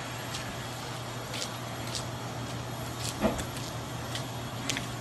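Minivan driving slowly through a parking lot, its engine running as a steady low hum under outdoor noise, with scattered faint clicks and a single louder knock about three seconds in.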